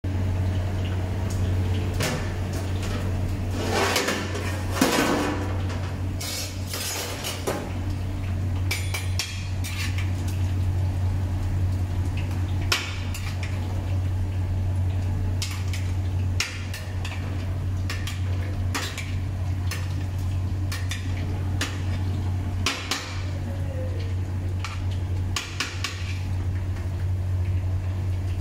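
Metal perforated skimmer scraping and knocking against a large metal cooking pot while rice is stirred and turned, in irregular clinks and scrapes. A steady low hum runs underneath.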